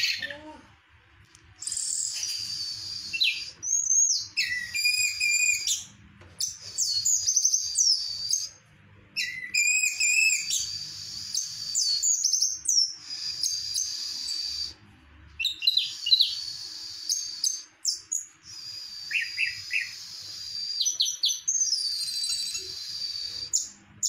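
Orange-headed thrush (anis merah) singing: a run of high, fast whistled and twittering phrases with quick upward and downward pitch slides, broken by short pauses.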